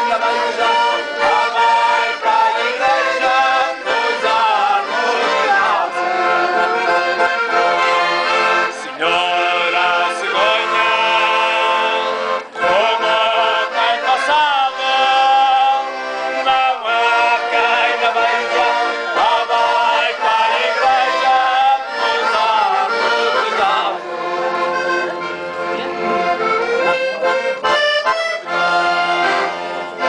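Accordion playing a traditional tune, with a man singing along over it.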